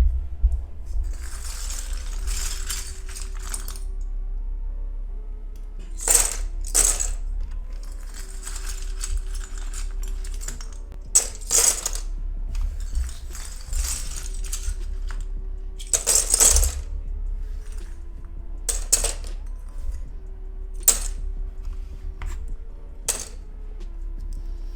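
Small hard plastic pieces, likely the pudding keycaps, clattering and rattling in several stretches, with about eight sharp clicks spaced through, over background music with a steady bass.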